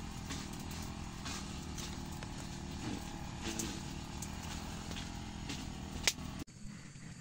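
A steady low, engine-like drone in the background, with scattered light crackles and clicks as the papery comb of a wild wasp nest is handled and the larvae picked out. A sharper click comes about six seconds in, then everything drops much quieter.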